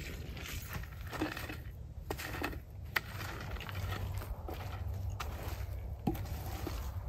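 Water poured onto campfire ashes at the start, then a stick scraping and stirring through the wet ash and embers in a string of scrapes and knocks, one sharper click about halfway through: a campfire being put out.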